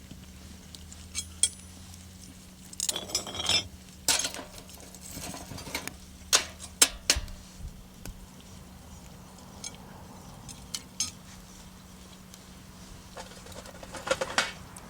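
Metal tongs clinking and scraping against an iron frying pan in scattered bursts, with a few sharp clicks and short clusters of rattling.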